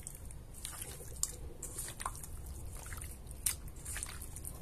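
Hands squeezing and mixing raw chicken strips in a lemon-juice-and-salt marinade in a stainless steel bowl: soft wet squishing with scattered, irregular small clicks.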